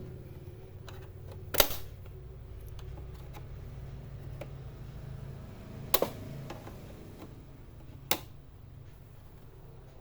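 Three sharp plastic clicks, spaced a few seconds apart, from the back-cover clips of an HP all-in-one PC being pried loose, over a low steady hum.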